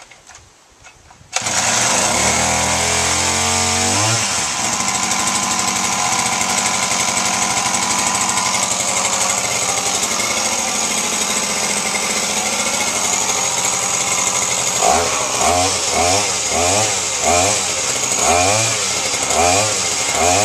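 Small 34cc two-stroke engine of a brand-new 4-in-1 long-reach hedge trimmer / pole saw multi-tool, started with the choke off on its first-ever run. It catches suddenly about a second and a half in, revs and settles into a steady run, then over the last few seconds is revved in short repeated blips, about one and a half a second.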